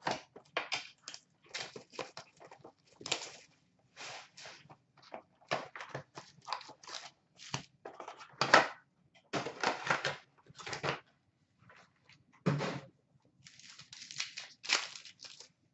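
A cardboard hockey card box and its packaging being torn and pulled open by hand: a run of short, irregular tearing and rustling noises. Louder knocks come about eight and a half and twelve and a half seconds in.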